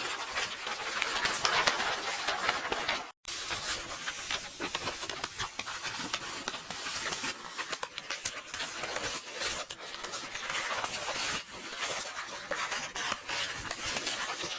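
Paper rustling and book pages turning: a continuous crackly shuffle of paper. It cuts out completely for a moment about three seconds in.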